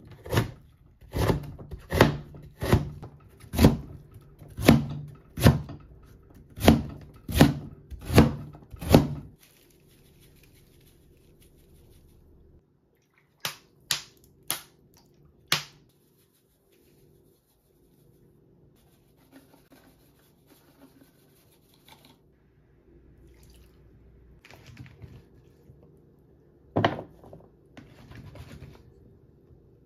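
Large kitchen knife julienne-cutting Korean radish on a cutting board: a quick run of chops, about two a second and often in pairs, that stops about nine seconds in. After a quiet stretch with a few separate clicks, a single thump comes near the end.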